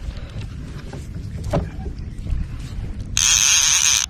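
Fishing reel's drag buzzing for about a second, starting about three seconds in, as a hooked fish pulls line off against it. Under it a low rumble.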